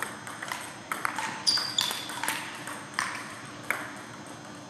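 Table tennis ball clicking off paddles and the table in a rally, about seven irregular hits over the first three and a half seconds, ringing in a large gym hall. A brief high squeak, stepping down in pitch, comes about one and a half seconds in.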